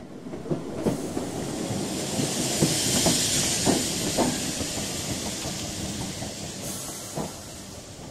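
Steam train: a loud hiss of steam that swells for the first few seconds and then fades, over irregular metallic clanks and knocks, one louder knock near the end.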